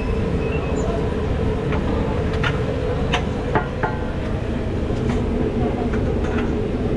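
Steady low mechanical drone with a hum, and scattered short light clicks and clinks.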